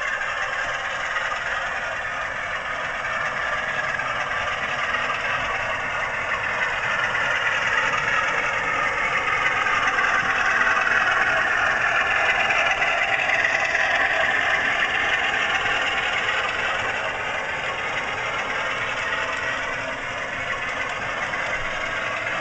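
DCC sound chip in a Bachmann model Class 47 locomotive playing the Class 47's Sulzer twelve-cylinder diesel engine sound through the model's small speaker as it runs. It grows louder as the locomotive comes past, loudest about halfway through, then fades a little.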